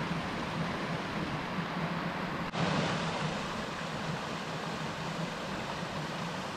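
Highland mountain stream rushing and splashing over rocks, a steady rush of water that changes slightly about two and a half seconds in.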